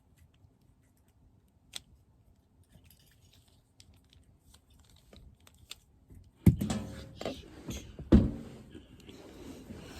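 Plastic Rubik's cube being turned by hand: faint scattered clicks at first, then a louder run of clicking and clattering turns from about six and a half seconds in, with two sharp knocks.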